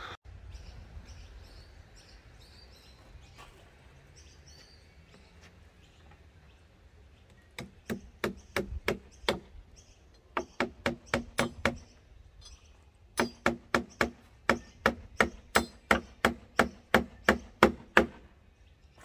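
Hammer blows on a wooden pallet, sharp knocks about three a second in three runs with short pauses between them, starting about eight seconds in and stopping shortly before the end.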